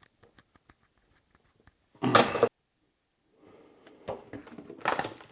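Kitchen handling sounds: a loud, half-second scrape or rattle about two seconds in, then a run of clicks and knocks as things are handled, with faint ticks before.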